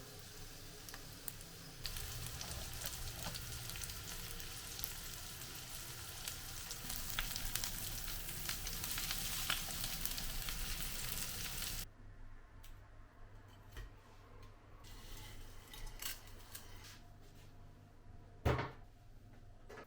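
Breaded chicken cutlet frying in hot oil, sizzling and crackling steadily. The frying cuts off suddenly about twelve seconds in, leaving a quieter stretch with a few light clicks and one sharp knock near the end.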